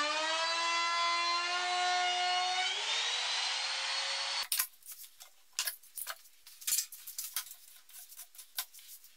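Handheld router cutting a miter slot in a phenolic-coated plywood tabletop: a steady motor whine that rises in pitch about three seconds in, then cuts off abruptly. Scattered light clicks and knocks follow.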